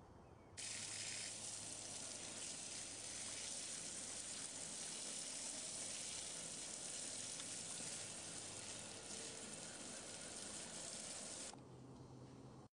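Garden hose spraying a jet of water onto a muddy shovel blade and a wet wooden deck: a steady hiss that starts suddenly about half a second in and stops suddenly about a second before the end.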